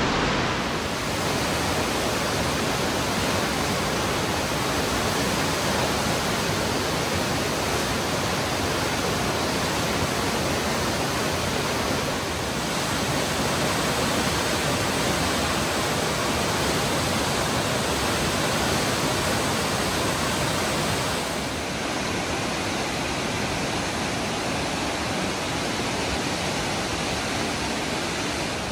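Wenatchee River rushing through whitewater rapids, high with spring runoff: a steady, loud rush of water.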